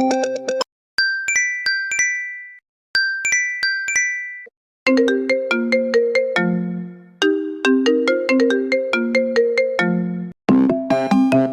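iPhone ringtones played back to back: a short, high chiming phrase sounds twice with a gap between, then a longer melody in lower notes runs for about five seconds, and a new, busier tone starts near the end.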